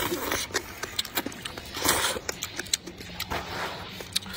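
Close-miked eating sounds: noodles being slurped from a bowl of chili broth and chewed, with many small wet clicks and smacks and two longer noisy slurps, one at the start and one about two seconds in.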